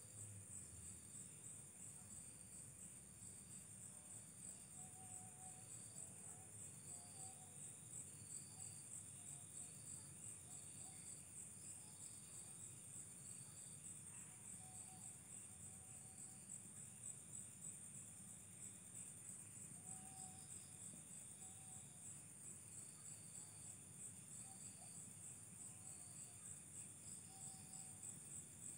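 Faint, steady high-pitched chirping of insects, a rapid unbroken trill, with a few faint short tones lower down.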